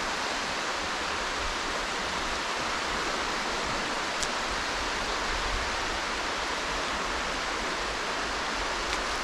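Steady rushing noise of strong wind on the microphone, with small waves washing onto the mud shore.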